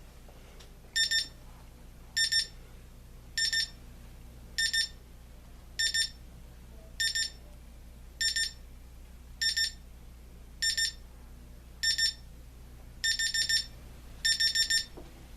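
Equity by La Crosse electric alarm clock's alarm beeping at its higher volume setting: short clusters of rapid high-pitched beeps about every second. Near the end the clusters grow longer as the ascending alarm steps up.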